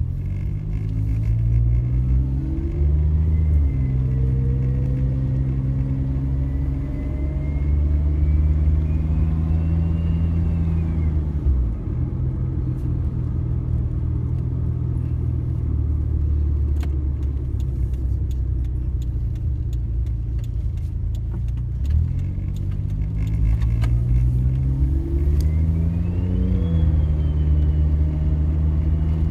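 Suzuki Jimny engine pulling away and accelerating through a gear change, cruising steadily, then easing off to a low drone for about ten seconds. It then accelerates again through the gears and settles into a steady cruise.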